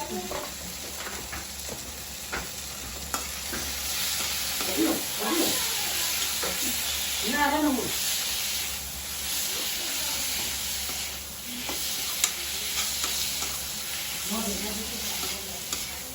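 Onion-and-spice curry gravy frying in oil in a karai, a steady sizzle, with a utensil stirring and knocking against the pan in scattered sharp clicks.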